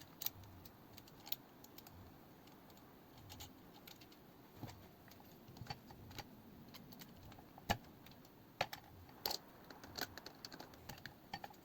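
Faint, irregular light clicks and taps of PC hardware being handled and fitted into a case, with a couple of sharper clicks in the second half.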